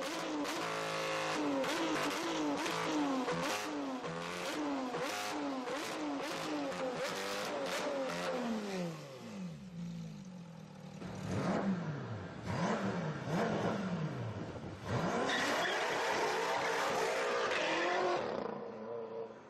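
Supercar engine revved in quick repeated blips, the pitch swinging up and down about once a second, then falling away. Several slower, deeper revs follow, then a loud sustained run that cuts off just before the end.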